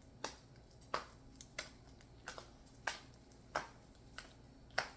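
Sticky glue-and-activator slime being kneaded by hand, giving sharp wet smacks and pops about one and a half times a second as it pulls off the fingers; the slime is at its sticky stage, still being mixed in.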